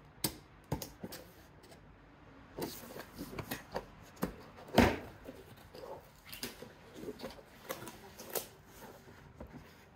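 Cardboard box being opened by hand: a string of short taps, scrapes and rustles as the carton is slid apart and its flaps pulled open, with the sharpest knock about five seconds in.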